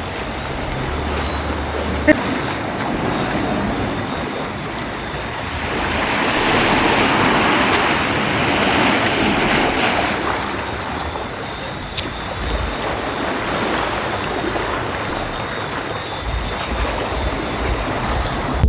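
Ocean surf washing onto the beach, with wind buffeting the microphone. The wash of the waves swells to its loudest about six seconds in and eases off after about ten.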